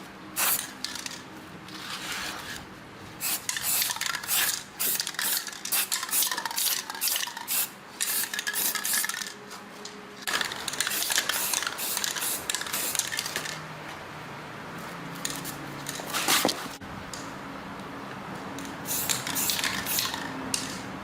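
Metal parts and hand tools clinking, knocking and scraping against each other in irregular handling, as in engine parts being worked on at a bench.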